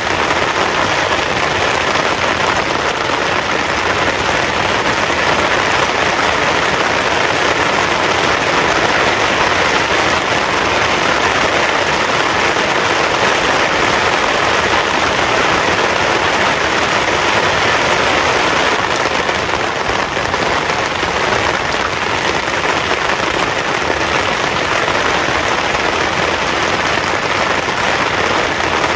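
Heavy rain pouring down steadily, a loud, dense, even hiss with no let-up.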